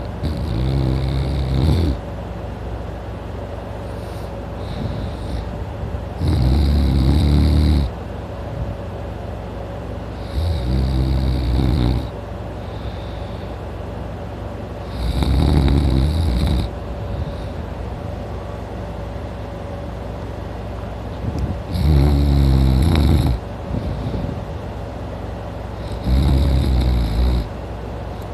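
A man snoring loudly in his sleep: six long snores, one about every four to five seconds, each lasting about a second and a half, with quieter breathing between them.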